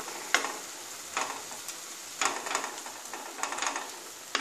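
Wooden spatula stirring and scraping a thick oats-and-vegetable mixture in a pan, a scrape about every second, over a steady sizzle of the cooking liquid on low heat.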